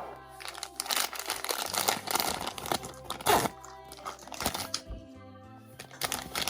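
Plastic blind-bag wrapper from a toy capsule being torn open and crinkled, a dense crackling for a couple of seconds with a few sharp snaps, over background music.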